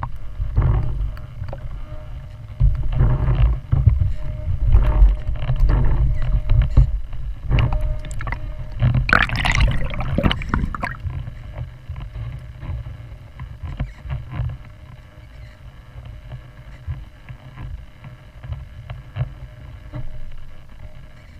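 Helicopter running on water: a loud, uneven low rumble with a faint steady engine tone above it, easing off after about eleven seconds, and a brief higher rushing sound about nine seconds in.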